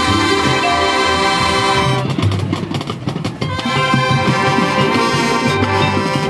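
High school marching band playing: the brass section holds full chords over the front-ensemble percussion. About two seconds in, the held chords thin out for a brief percussion-driven passage of sharp drum strikes, then the full chords return.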